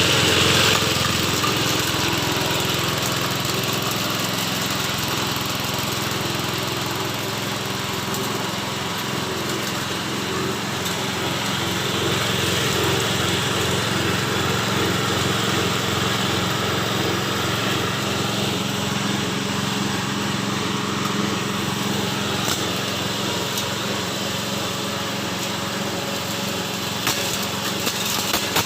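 Small engine driving a livestock-feed chopper machine, running steadily, with a few sharp clicks near the end.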